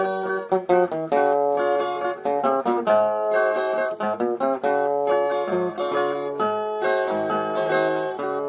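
Instrumental interlude of a song: acoustic plucked strings playing a melody over chords between sung verses, with no voice.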